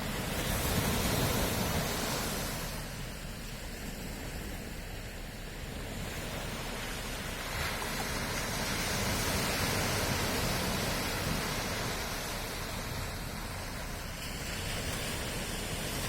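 Sea waves breaking and washing ashore, a steady rushing that swells and ebbs: a surge about a second in, a few softer seconds, then another build through the middle.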